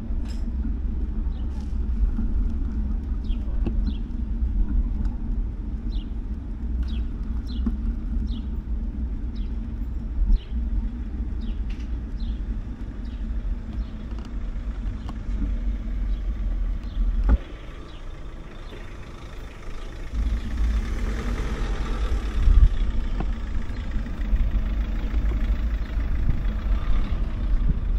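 Outdoor street ambience with a steady low rumble. Short high chirps come and go through the first half, a single sharp knock sounds partway through, and a broader rushing noise builds in the second half.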